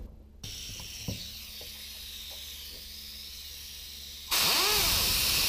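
Compressed air hissing through a METCO Type 2E metalizing gun's air-driven wire-feed motor: a steady softer hiss, then about four seconds in a loud burst of air with a whine that rises and falls as the motor turns briefly. The air supply is too weak to give it the torque to keep turning.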